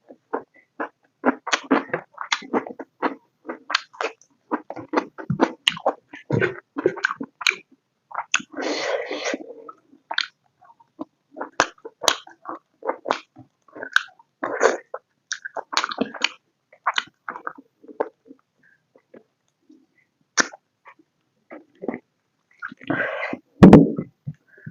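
Close-miked chewing of pork curry and rice, with many quick wet mouth smacks and clicks. A louder breathy burst, like a sharp exhale or sneeze, comes near the end.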